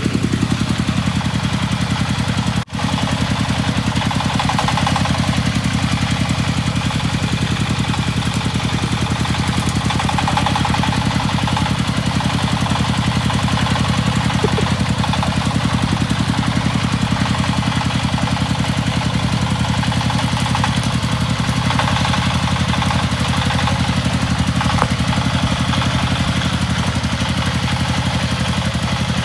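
Công nông two-wheel tractor's single-cylinder diesel engine running steadily with a fast, even chugging as it hauls a trailer loaded with sacks.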